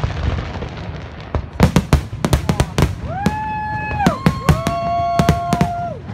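Fireworks display: a rapid string of sharp bangs and crackles begins about a second and a half in. From about three seconds in, several whistling fireworks overlap, each whistle sweeping up and then holding one pitch for a second or more before cutting off.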